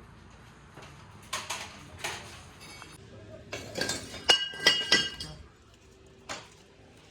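Metal clinking: a couple of knocks in the first two seconds, then a quick cluster of sharp, ringing metallic clinks about halfway through.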